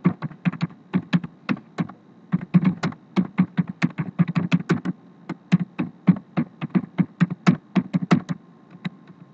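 Typing on a computer keyboard: quick, irregular key clicks, with a brief pause about two seconds in and the keystrokes thinning out near the end.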